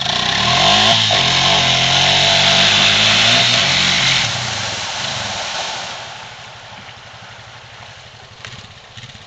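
ATV engine revving hard as it pulls away towing a canoe, with a loud rush of water spray as the canoe skims across the pond. Engine and spray drop off after about four seconds and fade as they move away.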